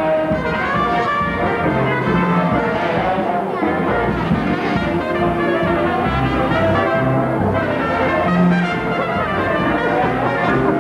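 Brass band music, with trumpets and trombones playing a tune.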